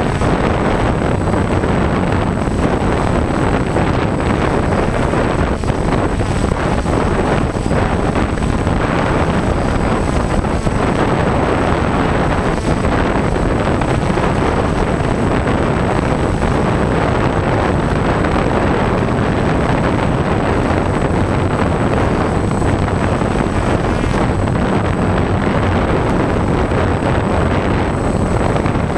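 Gusty wind buffeting the microphone over the steady running of a DJI F550 Flamewheel hexacopter's six motors and propellers in a hover, with a thin high whine above.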